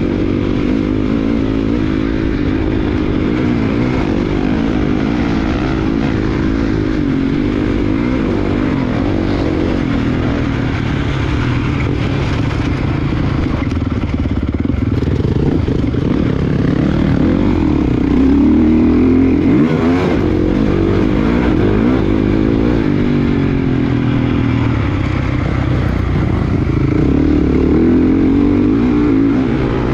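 Motocross dirt bike engine heard up close from the rider's own bike while racing on a dirt track, its revs rising and falling continuously through throttle changes and gear shifts.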